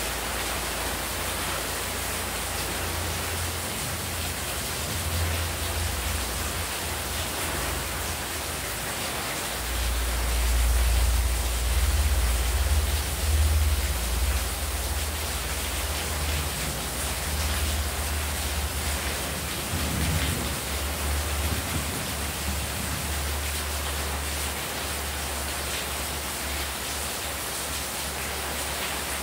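Heavy rain falling steadily, with water streaming off the roof edge onto the courtyard floor. About ten seconds in a low rumble swells for a few seconds, then weaker low surges come and go.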